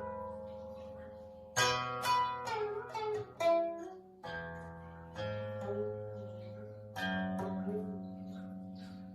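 Guqin (seven-string Chinese zither) played solo: single plucked notes and short clusters that ring on and fade slowly, their pitch sliding and wavering after the pluck as the left hand glides along the string. A busy run of notes about a second and a half in, then further plucks near four, five and seven seconds.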